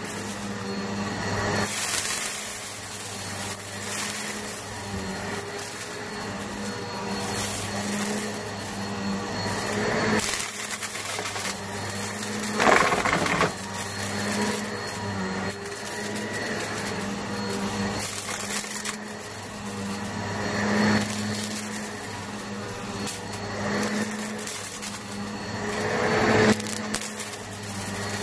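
Eureka PowerSpeed upright vacuum running on carpet, its motor humming steadily and swelling every couple of seconds as it is pushed back and forth. There is crackling as it picks up dirt, loudest about halfway through as it sucks up a clump of hair and dust.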